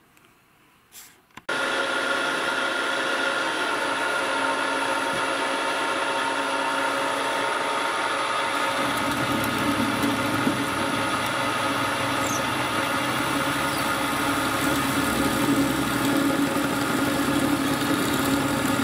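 Machine-driven 13 mm twist drill, freshly ground and point-thinned, boring a hole in a metal plate. A steady motor and spindle hum with several held tones starts suddenly about a second and a half in. A deeper cutting sound builds up about halfway through as the drill works into the metal.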